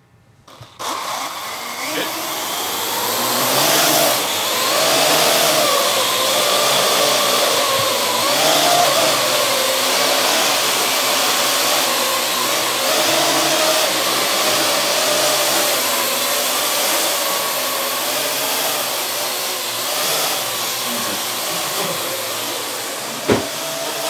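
Parrot AR.Drone quadcopter's four electric rotors spinning up about a second in as it lifts off, then a loud, steady buzzing whine as it hovers, the pitch wavering as the motors hold it in place. A sharp knock near the end.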